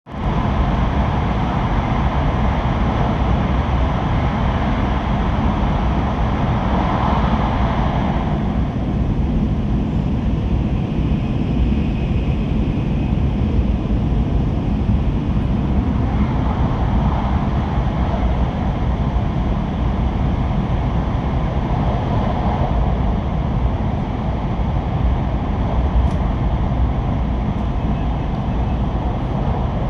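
Hokkaido Shinkansen train running at 210 km/h through the Seikan Tunnel: a loud, steady deep rumble with a rushing hiss above it, easing slightly after about eight seconds.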